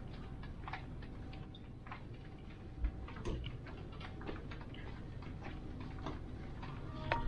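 Soft footsteps walking along a carpeted corridor, a light tick roughly every half second to second, over a low steady background hum.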